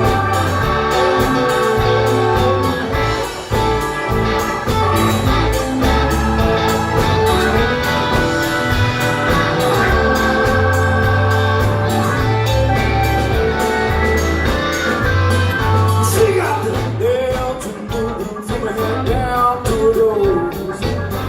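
Live band playing a blues song: guitar, bass and drums with a steady beat, and singing.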